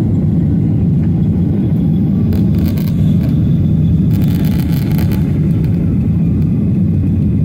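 Steady low roar of a Boeing 737-800's CFM56-7B turbofan engines and rushing air, heard inside the cabin during the climb after takeoff. Two brief hissing sounds come about two and a half and about four seconds in.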